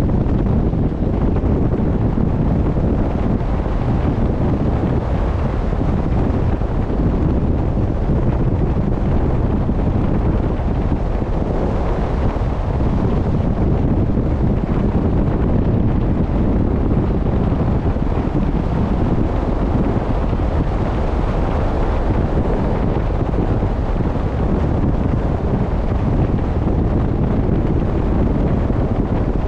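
Steady wind noise buffeting the microphone, low and even, over the rush of sea water from a sailing boat under way.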